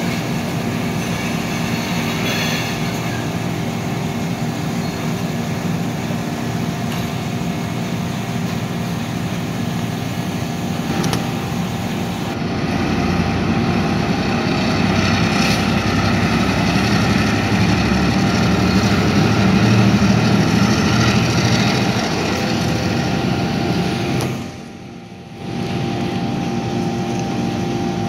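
Diesel switcher locomotives' engines running with a steady drone that swells louder through the middle as they work. It drops away briefly a few seconds before the end.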